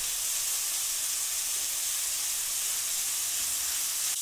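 Chicken breasts and chopped green onions frying in hot olive oil in a skillet, with a steady sizzle.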